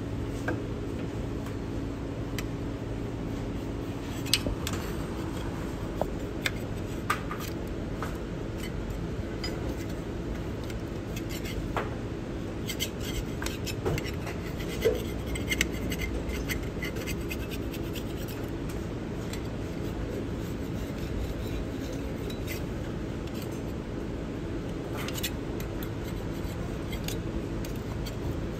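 Metal scraper scraping old gasket sealant off the engine's oil-pan mating flange, in irregular scratches and clicks, busiest in the first half and again near the end. This is the flange being cleaned before the oil pan is resealed against an oil leak. A steady low hum runs underneath.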